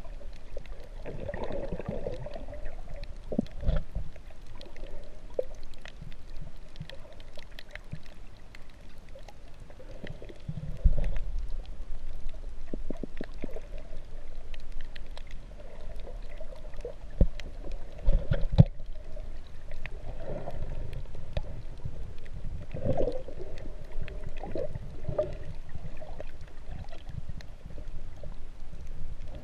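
Muffled underwater sound picked up by a GoPro in its housing: water sloshing and gurgling against the case, swelling and fading, with a few sharp knocks.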